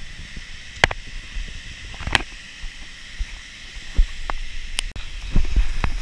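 Shallow stream water sloshing and splashing, with the steady rush of flowing water behind it and about half a dozen sharp knocks scattered through.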